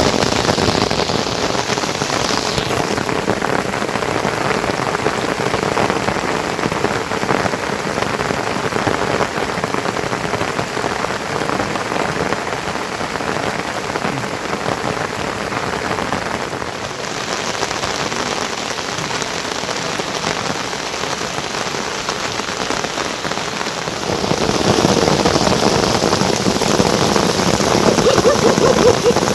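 Heavy rain falling steadily as a continuous hiss, growing louder for the last few seconds.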